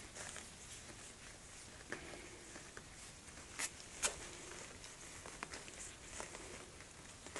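Faint rustling and scratching of three-week-old Cavalier King Charles spaniel puppies moving and mouthing at a hand on their bedding, with scattered light clicks and two sharper ones a little past halfway.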